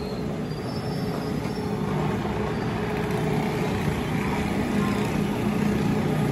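Steady low hum of running machinery, growing gradually louder.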